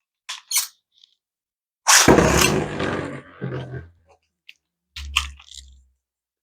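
Two Beyblade spinning tops launched one after the other into a plastic stadium. There are a couple of light clicks as they are loaded, then a loud launch and whirring rattle about two seconds in, and a second launch about five seconds in, the second being the left-spin attack-type Zeal Nyddhog.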